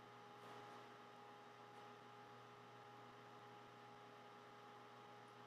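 Near silence: a faint, steady electrical hum of several tones over a soft hiss.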